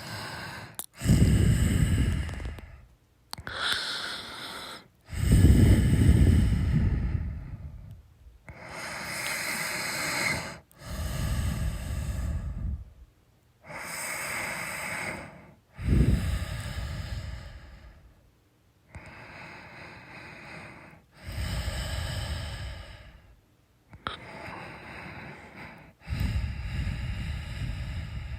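A sleeping person snoring: a series of slow, noisy breaths, each about two to three seconds long, with short pauses between them. Some are deep, low snores and others are breathier.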